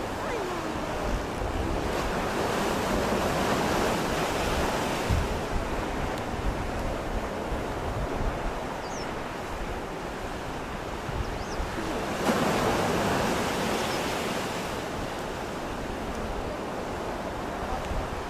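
Ocean surf breaking on the shore, swelling twice about ten seconds apart between steady washing, with wind buffeting the microphone.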